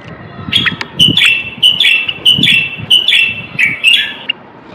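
Common bulbul singing: a quick run of about eight short, chattering notes that starts about half a second in and breaks off shortly before the end.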